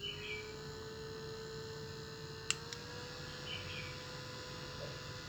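Small electric motor of a mini humidifier fan humming steadily. A sharp click comes about halfway through, and right after it the hum steps up a little in pitch, as when the fan is switched to a higher speed.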